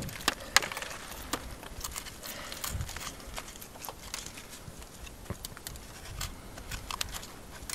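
Handling noise as bear quarters and game bags are moved by hand: irregular rustling with many sharp clicks and crinkles.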